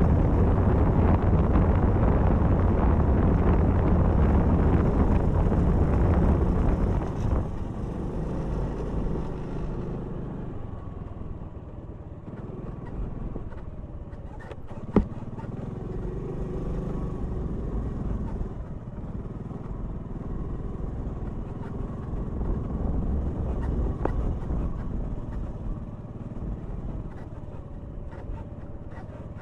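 Motor scooter's engine running on a hill climb. It is loud with a rushing noise for about the first seven seconds, then quieter and steadier. There is a single sharp knock about fifteen seconds in.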